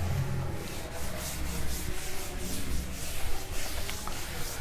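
A cloth duster rubbed back and forth over a chalkboard, wiping off chalk writing in quick, repeated scrubbing strokes.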